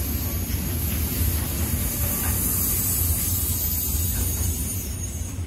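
Train running through: a steady low rumble with a high hiss over it, the hiss stopping suddenly at the end.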